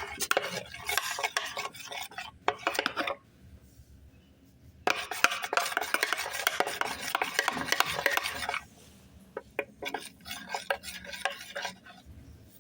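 A utensil stirring and scraping in a bowl, mixing glue with contact lens solution into slime. It goes in two long spells with a quiet gap of under two seconds between them, then a few scattered taps near the end.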